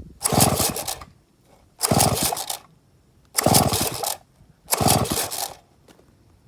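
Villiers 98cc two-stroke engine of a vintage Danarm chainsaw being pull-started, firing in four short bursts about a second and a half apart, each dying out within a second. The engine is running poorly, which the owner puts down to a carburettor that needs cleaning and a bad fuel tap.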